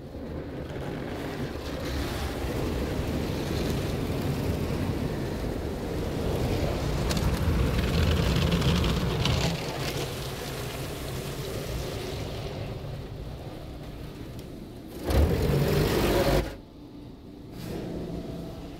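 PDQ ProTouch soft-touch car wash heard from inside the car's cabin: spinning foam brushes and water spray washing over the body and windows in a steady rushing with a low rumble. About fifteen seconds in, a louder rush lasts about a second and a half and cuts off suddenly.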